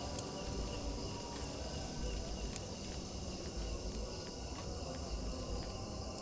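Night insects, a chorus of crickets, chirring steadily, with a few faint clicks.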